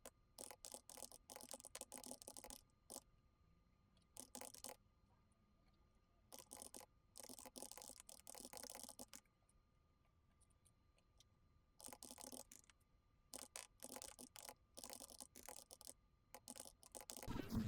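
Typing on a computer keyboard: quick runs of key clicks in bursts of a second or two, with short pauses between them.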